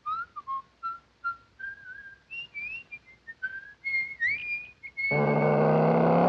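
A person whistling a jaunty tune in short separate notes, some sliding up or down. Near the end a loud, steady, low buzzing tone with many overtones comes in for about a second.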